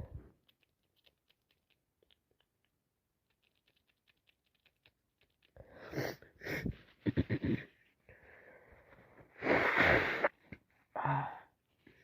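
A woman with a cold and allergies sneezing: a run of gasping, wheezy breaths in the middle, a drawn-in breath, then the loudest sneeze about ten seconds in, followed by a short vocal catch of breath.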